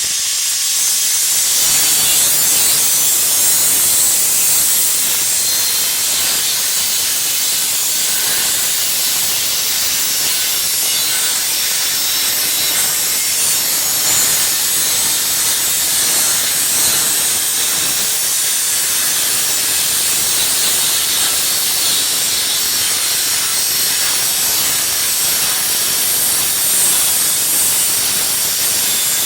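Angle grinder cutting metal: a steady, high hissing grind.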